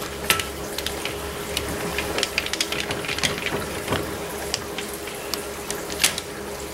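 Speed wrench and socket running bolts down on a Farmall Touch Control unit's head: irregular metallic clicks and rattles as the socket turns and is moved from one bolt to the next, over a faint steady hum.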